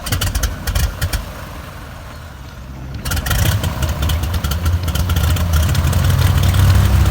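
Cessna 206's piston aircraft engine starting: uneven firing at first, then catching about three seconds in and running steadily and louder.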